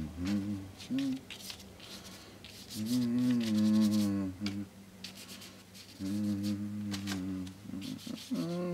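A man humming a tune in low, drawn-out notes, in several phrases, with the scratchy rub of a paintbrush stroking paint across paper between them.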